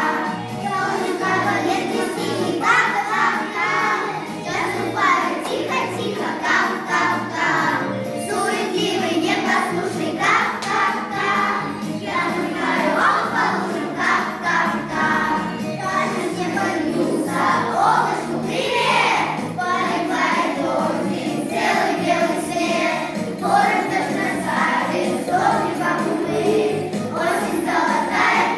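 A group of voices singing a song with musical accompaniment, likely children.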